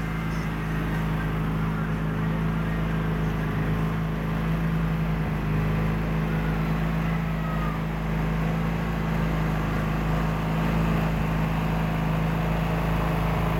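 Craftsman garden tractor engine running steadily while the tractor pulls a ground-working implement through loose soil.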